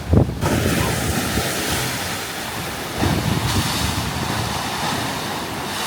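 Ocean waves surging and crashing into a rocky sea chasm, with surges about three seconds apart, over wind buffeting the microphone.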